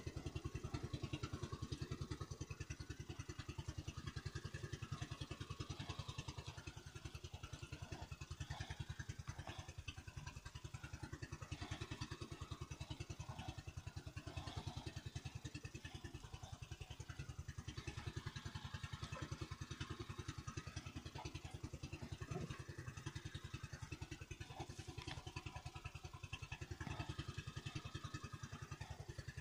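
Small motorised fishing boat's engine running steadily, with a fast, even beat.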